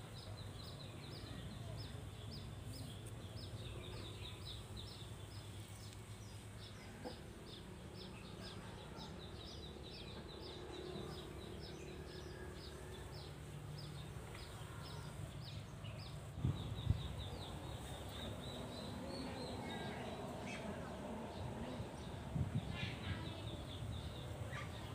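Faint outdoor ambience: a short high chirp repeats about three times a second, over a low steady hum, with a few soft thumps in the second half.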